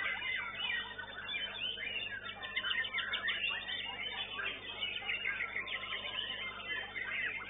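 White-rumped shamas (murai batu) singing, several birds at once in a dense, unbroken run of quick whistles and trills. The sound is dull, with its top end cut off, as picked up by a CCTV microphone.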